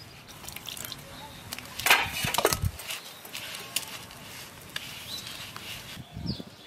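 Hands squeezing and mixing flour and water into dough in a stainless steel bowl: crumbly crackling and scraping, loudest in a cluster about two seconds in.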